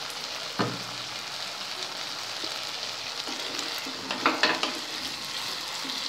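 Prawn and vegetable curry sizzling steadily in an open non-stick kadai on a low flame, with a single knock about half a second in. About four seconds in, a spatula scrapes and stirs through the pan.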